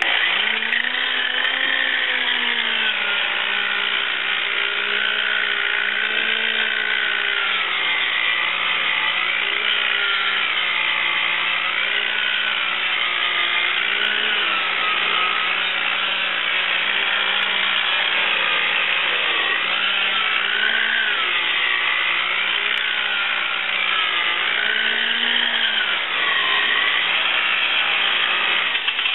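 Harbor Freight electric rotary buffer running with its pad on gel coat, polishing a fiberglass mold. The motor whine dips and recovers in pitch every second or two as it is leaned into the surface.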